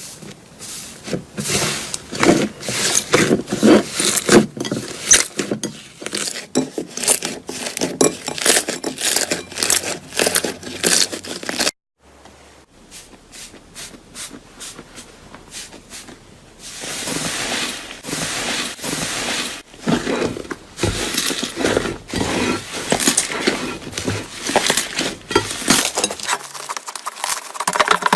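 Slime being pressed and worked by hand, giving dense crackling and popping clicks. The sound cuts out about twelve seconds in, and another stretch of slime handling follows with more clicking and some squishing hiss.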